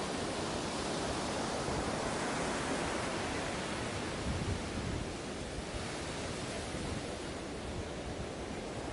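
Ocean surf washing onto a beach: a steady hiss of breaking waves, easing slightly about five seconds in.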